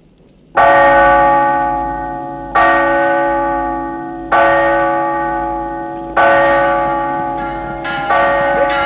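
A large church bell tolling in slow strokes about two seconds apart, each stroke ringing on and fading. Near the end more bell strokes come in faster and overlap.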